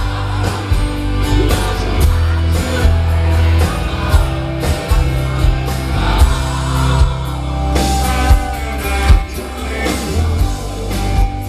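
Live rock band playing, with a male lead vocal over electric guitars, bass, keyboard and drums.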